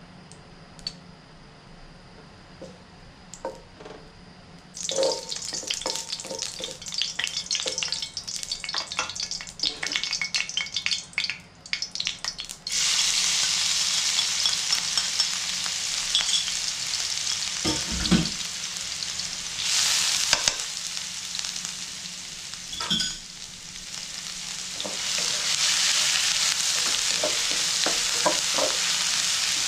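Fat sizzling in a non-stick frying pan while a wooden spatula stirs and scrapes it. Near the middle, coarsely pounded shallots and lemongrass are tipped in and the sizzle becomes loud and steady as they sauté.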